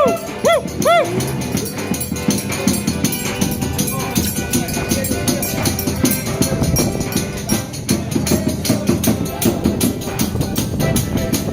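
Live forró pé de serra music: a sanfona (accordion) with a busy, steady shaken-and-struck percussion beat, opening with a couple of short bending notes.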